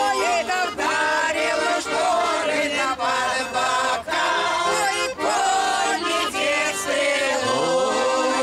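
Mixed group of older men and women singing a song together in chorus to a bayan (Russian button accordion).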